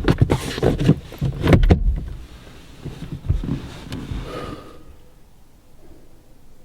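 A quick run of sharp knocks and clatter for about two seconds, then softer scattered bumps that die away about five seconds in.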